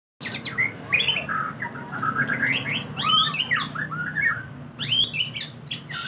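White-rumped shama (murai batu) singing in full voice: a fast, varied stream of whistles, chirps and harsh notes.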